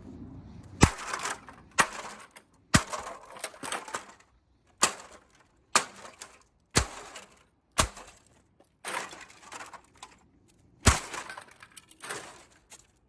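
Golf club smashing old computer electronics: about a dozen hard blows roughly a second apart, each with a crunch of breaking plastic and glass and rattling pieces.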